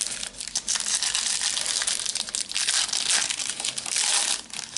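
Foil trading-card packet being torn open and crumpled in the hands: a dense, continuous crinkling and crackling.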